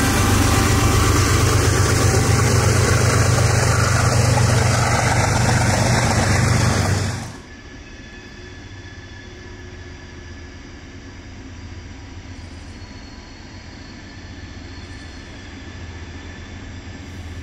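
Norfolk Southern freight train passing close by: a loud, steady rumble and rattle of the rail cars on the track. About seven seconds in it cuts off abruptly, leaving only a low, steady hum.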